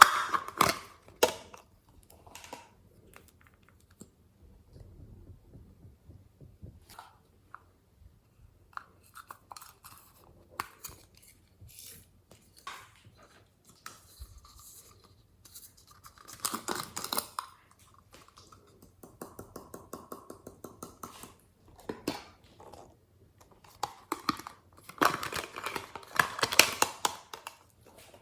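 Hands squeezing and stretching glossy slime: irregular sticky clicks, crackles and squelches, growing busier and louder twice, past the middle and near the end.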